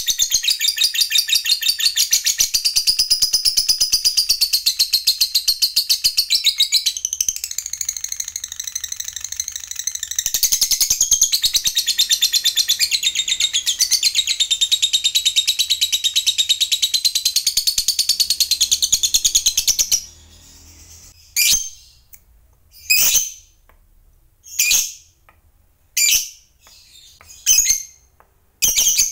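Fischer's lovebird giving a long, very rapid chattering trill, the 'ngekek panjang' song prized in fighter lovebirds, with its pitch wavering; about twenty seconds in it breaks off into single sharp chirps about every second and a half.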